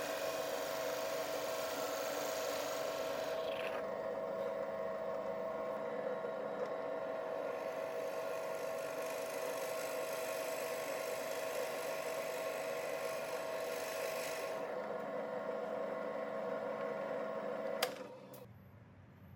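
Drill press running with a steady whine while its bit bores into a hardwood block, the cutting hiss heavier at the start and again in the last few seconds. Near the end the motor is switched off with a click and the whine stops.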